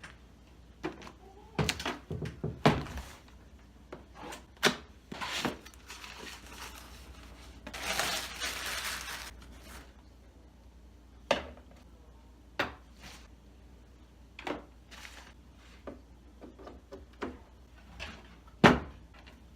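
Scattered knocks, clicks and thunks of hard parts being handled and set down, with a rustling stretch about eight seconds in.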